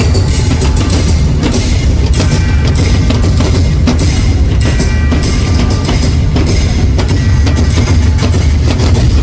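Group of show drummers playing loud, fast drumming with a heavy, continuous bass underneath.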